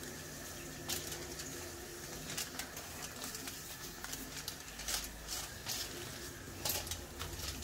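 Aluminium hair-colouring foil crinkling as it is folded around a section of hair, in a string of short crackles, the loudest about five seconds and near seven seconds in, over a steady low hum.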